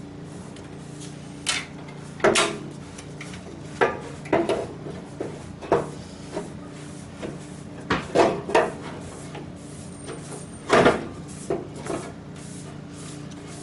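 Honda Civic double-core aluminium radiator with an electric fan being set into a car's front frame by hand: irregular knocks and clunks against the surrounding metal, about a dozen, the loudest about two and eleven seconds in, over a steady low hum.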